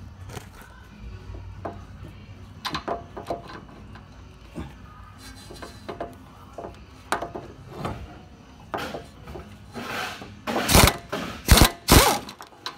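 Metal clicks and knocks of a socket and extension being worked onto the wheel hub's mounting bolts, ending in a few loud sharp knocks.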